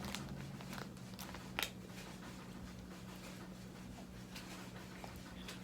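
A few faint clicks and rustles in the first two seconds, the loudest about a second and a half in, then only a steady low hum of room tone.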